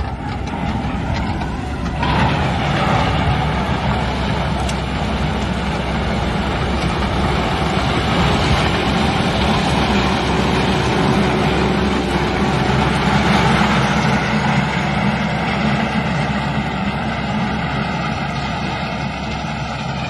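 Diesel engine of a Cat 424 backhoe loader working under load as its front bucket pushes and levels stone aggregate. The engine gets louder about two seconds in and then runs steadily.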